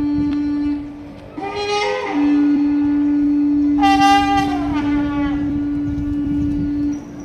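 Wind instruments playing dance music: one holds a long steady low note, breaking off about a second in and coming back about two seconds in, while a higher line sounds in short phrases that slide downward, around two and four seconds in.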